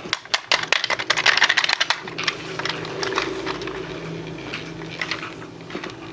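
Hands handling a toy and its plastic packaging: a quick run of clicks and crinkles for about two seconds, then sparser clicks over a faint low hum.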